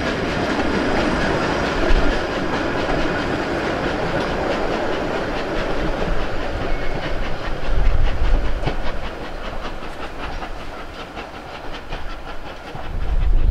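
Narrow-gauge steam tank locomotive No. 12 Hutchinson (a Beyer Peacock 2-4-0T) running with its train: steam hiss and exhaust over the clickety-clack of wheels on the rail joints. The sound eases somewhat after the middle, and wind rumbles on the microphone at times.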